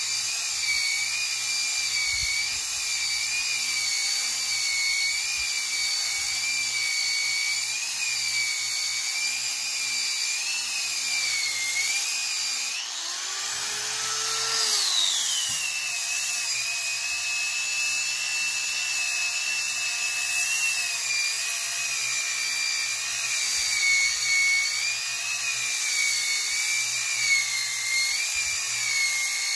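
Small handheld rotary sander with a hook-and-loop sanding disc sanding jujube wood: a high-pitched whine whose pitch wavers as the disc is pressed into the wood. About 13 s in, it briefly winds down and then spins back up.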